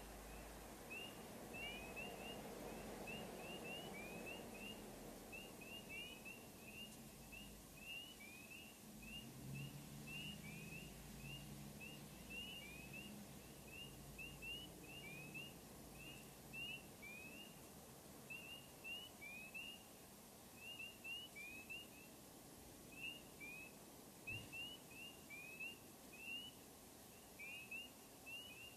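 Faint chorus of spring peeper frogs: many short rising peeps, several a second and overlapping, carrying on steadily. A low distant rumble sits under them in the first part.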